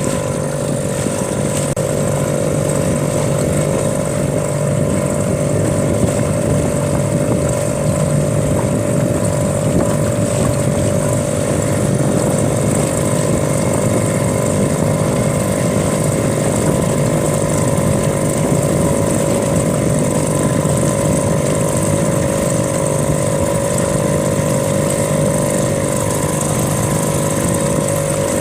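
A small boat's motor running steadily at constant speed, a loud, even drone that does not change.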